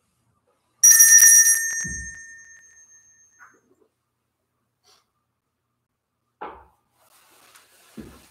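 Altar bell shaken once, a cluster of small bells jingling about a second in and ringing away over the next two seconds. A low thump follows just after, and another dull thump near the end.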